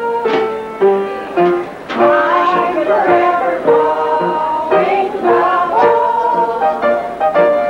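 Kitchen band playing a tune: several melody lines over a regular beat of plucked and drummed strokes.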